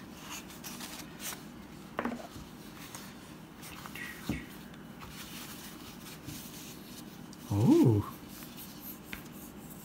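Quiet rustling of a microfiber cloth being unrolled and handled, with a few light taps as a folding knife is unwrapped from it. About three-quarters of the way through comes a short voice-like sound that rises and falls in pitch, the loudest thing heard.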